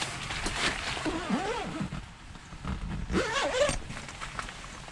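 Rustling of winter clothing and the ice shelter's quilted fabric as two people shift about and set up gear, with a zipper-like rasp and two spells of short squeaky gliding sounds, about a second in and again near three seconds.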